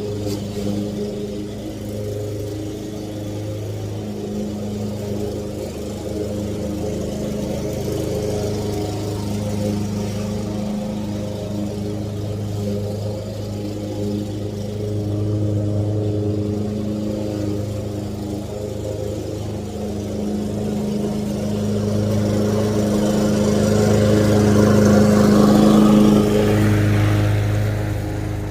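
Lawn mower engine running steadily while cutting grass, swelling louder about three-quarters of the way through and then easing back.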